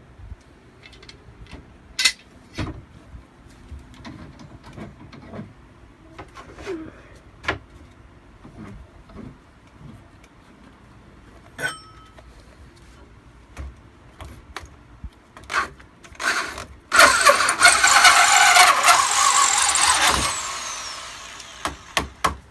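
Scattered knocks and clicks of tool handling, then a handheld power tool runs at full speed for about three seconds. It cuts off and winds down with a falling whine near the end.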